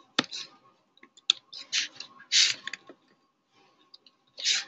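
Separate keystrokes clicking on a computer keyboard, with three short, louder hissing sounds around two seconds in, a little later, and near the end.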